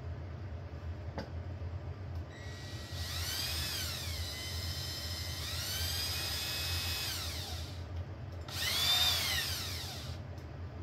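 Cordless drill run in three short bursts while boring into an aluminum plate. Each time its motor whine rises as it spins up and falls away as it slows. The drill seems short of power, which the user puts down to a flagging battery, maybe from the cold.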